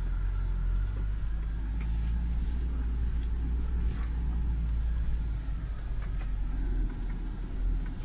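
UAZ Patriot's ZMZ Pro four-cylinder petrol engine and running gear, heard as a steady low rumble while the vehicle is driven, with a few faint knocks and rattles.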